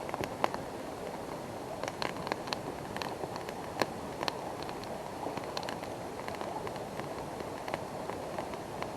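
Wood campfire crackling, with irregular sharp pops and snaps over a steady rushing background.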